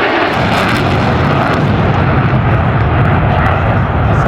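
Aircraft engine noise: a loud, steady roar with a strong low rumble as a plane flies past.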